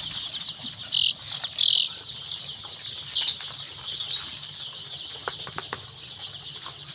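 A brood of week-old ISA Brown pullet chicks peeping continuously in a dense, high-pitched chorus, with a few louder peeps in the first three seconds and some light clicks of scratching or pecking later on.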